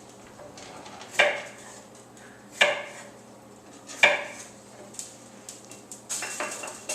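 Dishes and metal cutlery clinking as a dishwasher is unloaded: three separate ringing clanks about a second and a half apart, then a quick run of lighter clicks near the end.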